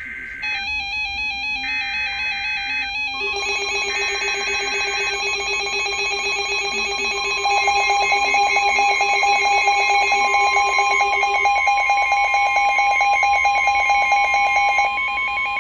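Emergency Alert System warning: the SAME digital header bursts of a NOAA Weather Radio alert, followed by a long steady alarm tone, with several electronic alert beeps from weather radio receivers and an EAS decoder layered over it. The alarm grows louder about seven seconds in.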